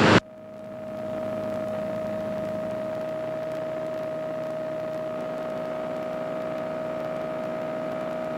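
Steady drone of a KR-2S light aircraft's engine and propeller heard from inside the cockpit in a cruise climb: an even hum with a constant tone running through it. It dips just at the start and comes back up within about a second.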